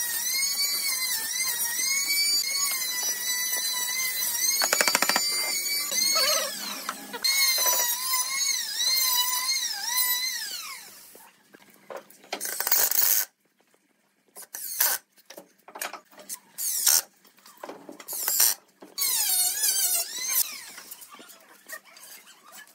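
Cordless impact driver running screws into pine frame joints. Its motor whine rises and falls in pitch for about ten seconds, then comes in short stop-start bursts, and a falling whine closes it.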